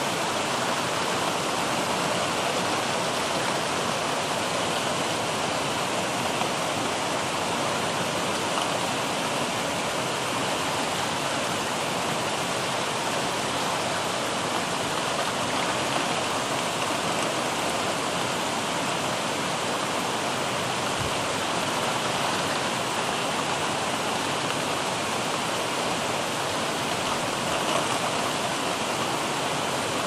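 Heavy rain falling steadily: an even, unbroken hiss.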